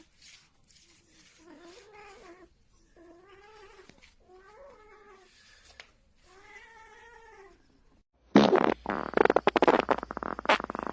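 A cat meowing in drawn-out, rising-and-falling calls, about four of them a second or so apart. About eight seconds in, a much louder rough, rasping noise with sharp clicks starts abruptly.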